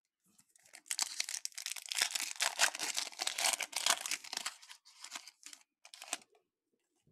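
Foil wrapper of a 2022 Topps Chrome Update baseball card pack being torn open and crinkled. A dense crackling starts about a second in and thins to scattered crinkles before stopping a little after six seconds.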